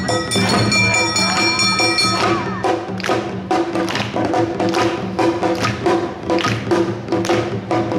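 Awa odori narimono band playing live: ringing metallic tones over the first two seconds, then drums and hand gongs keeping a steady, even beat.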